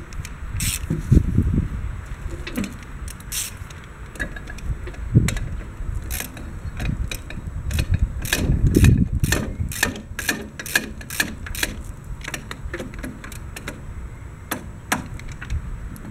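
Socket ratchet clicking in quick runs as a bolt is tightened, the clicks thickest in the middle, with knocks and rustle of the tool and hands working against the tractor's steel.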